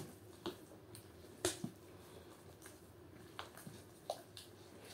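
Bare hands kneading and squeezing soft, sticky dough in a bowl: faint, irregular wet squelches and small slaps, the loudest about one and a half seconds in.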